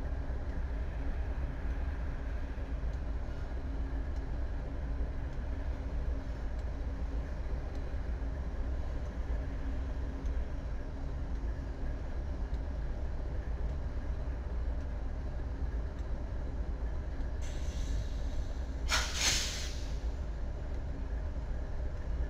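BNSF diesel-electric locomotive's engine running with a steady low rumble. Near the end a hiss of air starts, rising to a short loud burst of escaping air.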